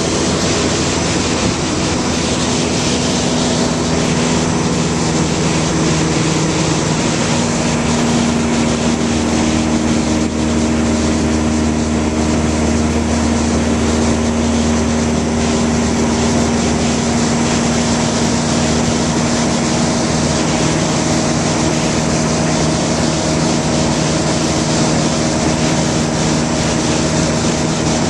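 Steady engine drone heard inside a light aircraft's cabin, a constant rush with several steady hum tones over it.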